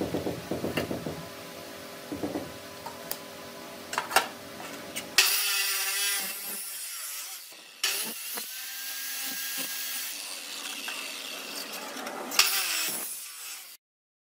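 Maktec abrasive cut-off saw cutting through square steel tubing: a loud, high grinding hiss that starts about five seconds in, eases for a moment partway through, and then cuts off suddenly near the end.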